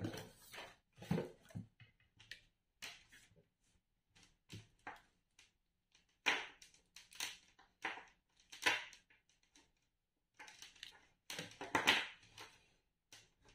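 Handling noises from unpacking a multimeter on a wooden desk: irregular rustles, rattles and light knocks as the test leads are untangled and the meter is set down.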